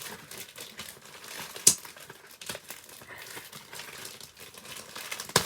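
Packaging crinkling and crackling as a parcel is unwrapped by hand, with a sharp snap about two seconds in and another near the end.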